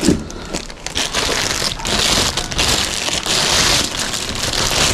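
Plastic packaging crinkling and rustling as it is handled while unpacking a vacuum cleaner, a dense irregular crackle.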